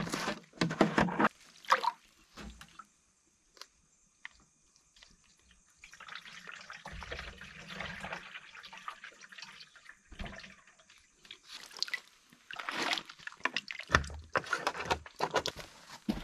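Water sloshing and pouring in irregular bursts, with a quiet spell of a few seconds partway through.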